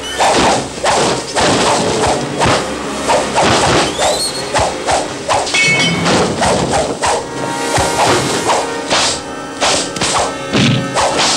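Martial-arts fight sound effects: a rapid, irregular run of punch and kick thwacks and whooshes, several blows a second, over background music.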